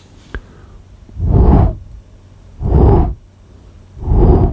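Three heavy whooshing flaps about a second and a half apart: a Foley prop swung through the air to imitate dragon wing beats.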